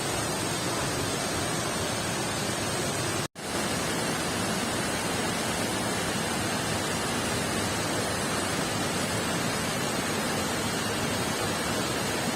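Waterfall in heavy flow: a steady rush of falling water. The sound cuts out for a split second about three seconds in.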